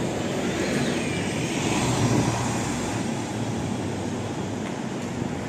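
Street traffic: a vehicle passing on the road, its noise swelling to a peak about two seconds in and then fading.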